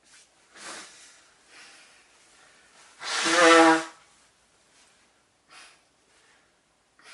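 A person sneezing: a couple of sharp in-breaths, then one loud voiced sneeze about three seconds in, lasting about a second, followed by two short faint breaths.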